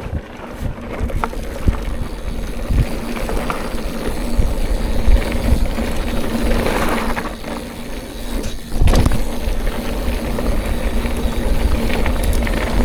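Mountain bike being ridden along a trail: a continuous rumble from the tyres and the bike over the ground, with sharp knocks and rattles over bumps.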